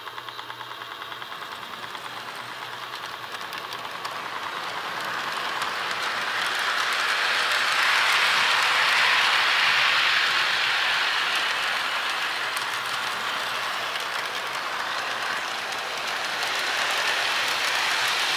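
Lionel O gauge 0-6-0 toy steam locomotive and its cars rolling on three-rail track, a steady rattling of wheels on rail. It grows louder as the train approaches, is loudest about halfway through, and swells again near the end as the cars pass close by.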